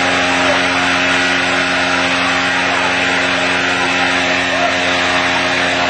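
An engine running at a constant speed: a steady, unchanging drone over a hiss, with voices in the background.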